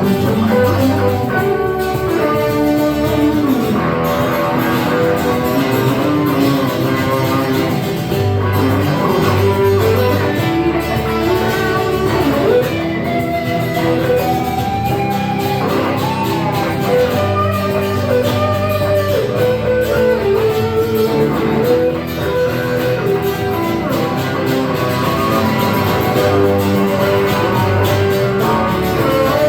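Live band playing an instrumental break: a lead guitar takes a solo with bending, gliding notes over the rest of the band.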